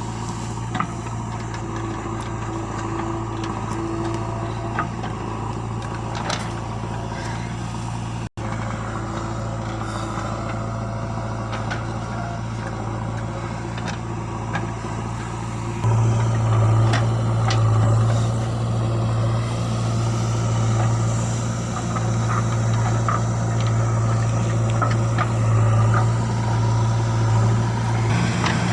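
JCB 3DX backhoe loader's diesel engine running with a steady low drone, speeding up and getting louder about halfway through. Occasional short knocks are heard over it.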